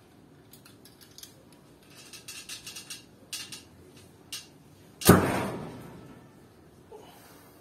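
Light clicks and rustles as an arrow is nocked and an 80-pound Alibow H1 traditional bow is drawn, then about five seconds in one loud thump of the release, the bowstring slapping forward and the arrow striking the target butt almost at once, ringing out over about a second.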